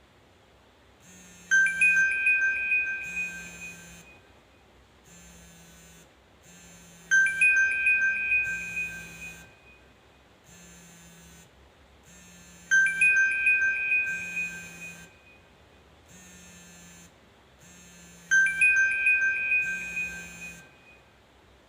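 A Nokia E63 ringtone playing: a bright, chime-like phrase that starts with a sharp strike and rings out over two to three seconds. It repeats four times, about every five and a half seconds.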